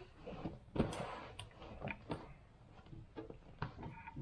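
Irregular light clicks and taps of hands handling a small plastic toy capsule ball, a little louder about a second in.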